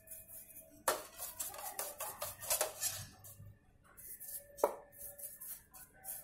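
Bicycle bearings being scrubbed by hand in a metal tin of cleaning liquid: splashing and swishing, with metal clinks against the tin, the sharpest about a second in and again just after four and a half seconds.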